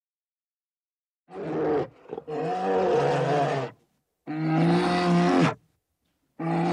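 Brown bears calling in a series of deep, drawn-out vocalisations. Each call lasts about a second, and they come with short pauses between, starting about a second in.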